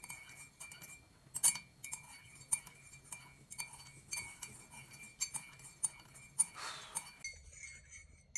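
Spoon stirring in a glass, clinking against its sides about twice a second. A short rushing noise comes near the end.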